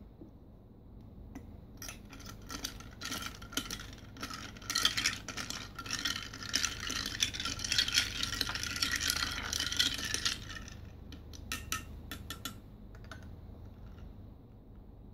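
A metal spoon stirring ice cubes in a drinking glass: a rapid, clattering run of clinks that builds up and stays dense for several seconds, then thins to a few scattered clinks near the end.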